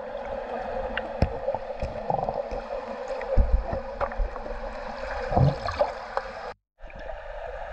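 Underwater swimming-pool ambience picked up by a submerged camera: a steady watery rush with a few dull knocks as the torch is handled. The sound drops out for a moment about six and a half seconds in.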